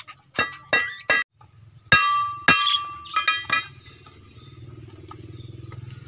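About seven sharp metallic clangs that ring briefly, three in quick succession near the start and four more between about two and three and a half seconds in. After them a low steady hum sets in, with faint budgerigar chirps above it.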